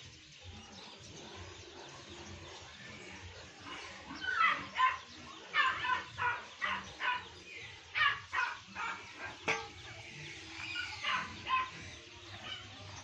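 Animal calls: a run of short, repeated calls starting about four seconds in and going on for several seconds over faint background noise.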